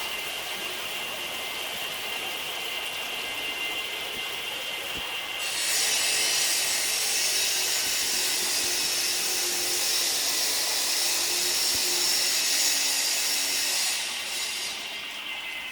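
Heat-treatment furnace plant running with a steady machine hum and two high whine tones, then about five seconds in a loud hiss starts and holds for about eight seconds before easing off: the hot charge steaming and boiling in the water of the quench tank.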